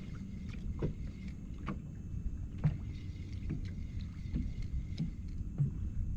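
Water lapping against the hull of a small boat, with irregular light knocks and slaps every half second to a second over a low wind rumble.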